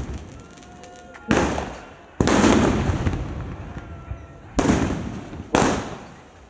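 Aerial firework shells bursting overhead: four loud booms in two pairs, each fading away in a long echoing rumble.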